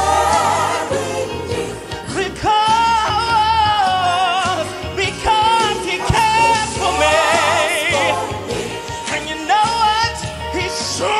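A man singing gospel live, with long held notes and wide vibrato, over band accompaniment with a steady bass line.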